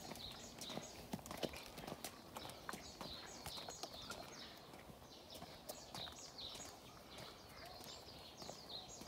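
A small child's sneakers patting on brick paving as he walks and trots, a quick irregular run of soft footfalls. High short chirps of birds repeat over it.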